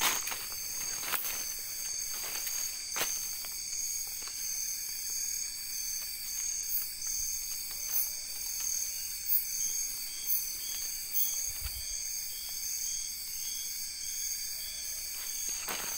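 Steady night chorus of crickets and other insects, several high-pitched trills held at once. A few short rustles or footsteps in undergrowth break through it.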